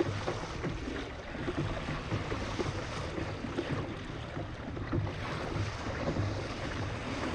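Strong wind buffeting the microphone over rough sea, with waves washing against a kayak; a steady rumbling noise.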